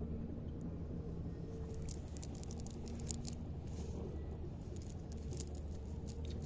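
Wet water plants and a nylon fishing net rustling and crackling as hands pick through them. The crackles come in a cluster a couple of seconds in, with one more near the end, over a steady low hum.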